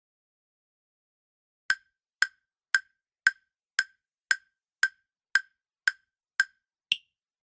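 Countdown timer sound effect ticking: ten short wooden clicks about two a second, then one higher-pitched click that closes the countdown.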